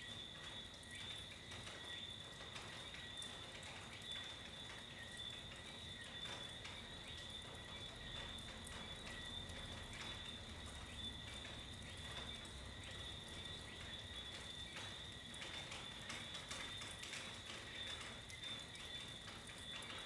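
Faint night ambience in a tropical storm: a steady, high-pitched chorus of calling night creatures, with scattered light ticks of raindrops or drips throughout.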